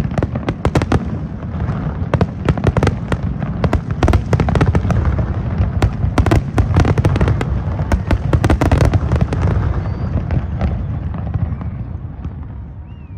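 Fireworks display: a rapid, dense run of bangs and crackles over a continuous low rumble, thinning out and fading over the last few seconds.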